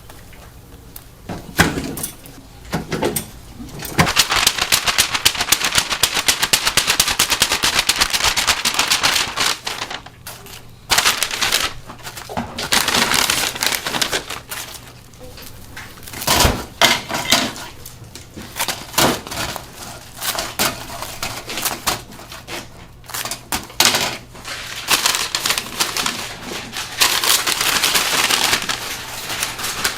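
Bungeoppang cooking on the stall's cast-iron fish-shaped molds: rapid crackling and clattering that comes in stretches of a few seconds, with single knocks in between.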